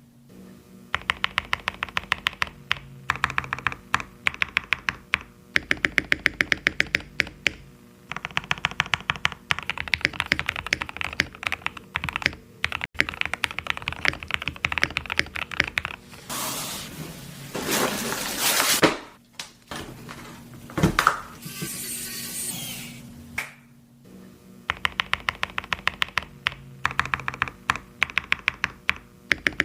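Typing on a mechanical keyboard fitted with Gazzew Boba U4T tactile switches: fast runs of key presses in several bursts with short pauses between. A little past halfway the typing stops for a rising rushing noise, followed by a single knock.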